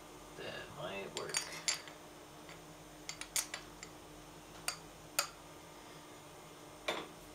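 Aluminium part clicking and clinking against the steel vise jaws and parallel as it is set in and pressed down by hand: a scattered series of sharp metallic clicks over several seconds.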